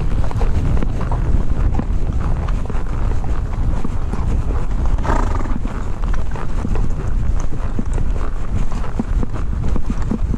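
A horse's hooves clopping as it is ridden, under a heavy low rumble of wind on the microphone.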